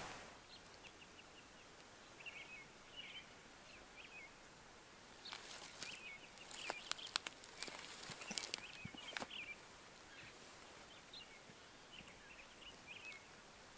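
Faint small-bird chirps repeating in the quiet, with a cluster of sharp crackles and clicks between about five and nine seconds in.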